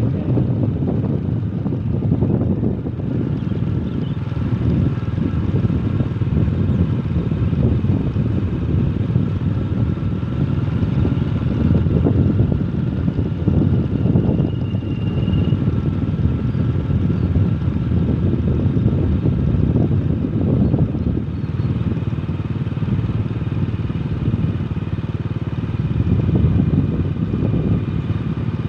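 Steady road traffic running continuously, with vehicle engines and tyre noise.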